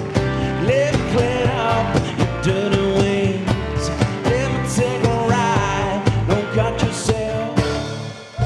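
Live band playing a song with a man singing over acoustic guitar and double bass to a steady beat. The music fades away near the end.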